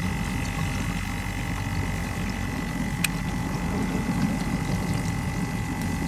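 Kenmore dishwasher running, heard from underneath the unit: a steady low hum from its pump motor and water inside, with a thin steady whine over it. A single sharp click about three seconds in.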